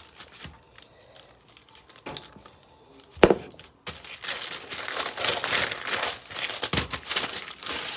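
Plastic crinkling and rustling as pie dough is handled, with one sharp knock about three seconds in; the crinkling is dense and continuous through the second half.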